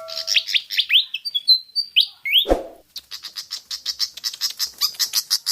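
Pied fantail calling: a run of quick upward-sweeping squeaky chirps, a brief thud about halfway through, then a fast even series of short high notes, about five a second.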